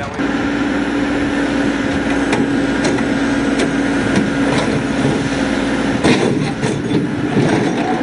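Caterpillar backhoe loader's diesel engine running at a steady hum, with a series of sharp metallic knocks and clanks as the bucket pushes the trench box down into the trench. The knocks come irregularly, most of them in the second half.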